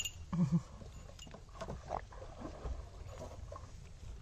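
Goat kids being hand-fed watermelon: a short low goat call about half a second in, then faint rustling and small clicks as they move and chew in the straw.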